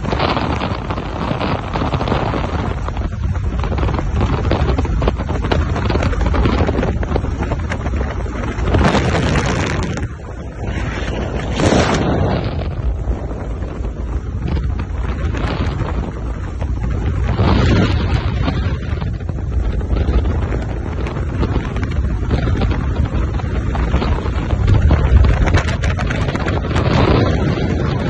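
Wind buffeting the phone's microphone over the low rumble of a moving vehicle being ridden on top of, with a few louder gusts.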